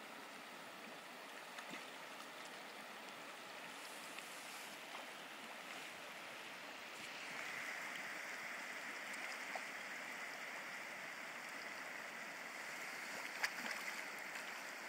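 River water rushing over rocks in a fast current: a steady rush that grows a little louder about halfway through, with one sharp click near the end.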